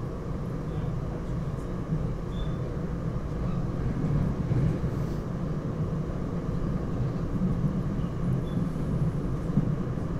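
Steady low rumble of a SEPTA Regional Rail push-pull train heard inside the passenger coach, with a faint hum over it.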